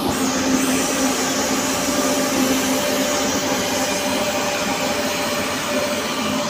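Trenitalia high-speed electric train running past along the platform: a steady rail rumble with a steady low hum over it.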